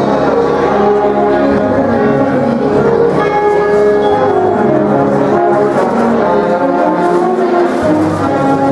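High school symphonic band playing a Christmas piece: held brass and wind chords with bells ringing over them.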